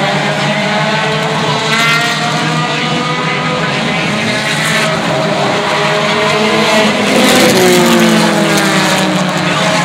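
Stock cars racing past on an asphalt short track, several engines running hard together. The pitch drops as cars go by, about two seconds in and again near the end, when it is loudest.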